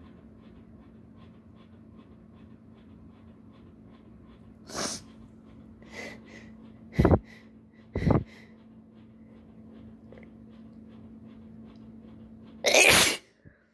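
A sneeze build-up: a few sharp, hitching breaths and gasps, then a single loud sneeze near the end, brought on by an irritant sniffed into the nose. A low steady hum runs underneath.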